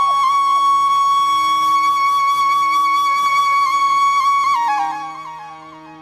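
Background instrumental music: a flute-like melody holds one long high note for about four seconds over a steady low drone, with quick ornamented notes before and after it, then fades out near the end.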